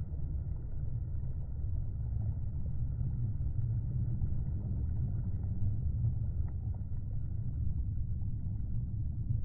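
Low, steady rumble of jet engines from two aircraft climbing together in formation.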